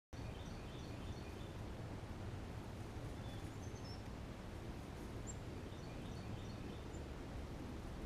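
Small songbirds chirping in a few quick series of short high notes, near the start, around the middle and again late, over a steady low outdoor rumble.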